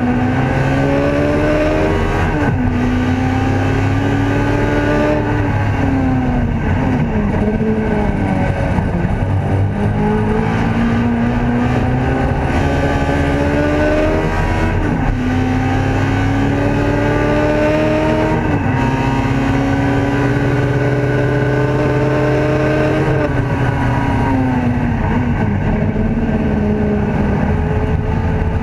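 Ford Escort race car's engine heard from inside the cabin, pulling hard. Its note climbs in pitch through each gear and drops back sharply at each gearchange, about six times.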